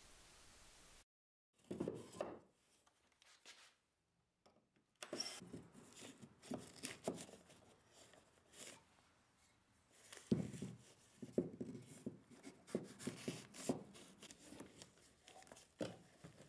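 Hands working wood blocking inside a wall cavity: scattered knocks, scrapes and rustling of wood against wood and the insulation facing, starting after a quiet first second or so.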